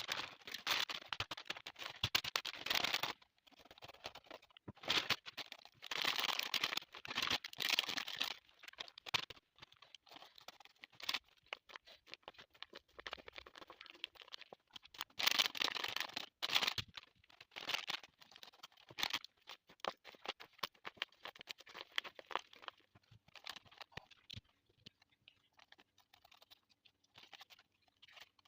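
Paper blind bag being handled and opened: paper crinkling and rustling in repeated bursts of sharp crackles, thinning to sparser small crackles near the end.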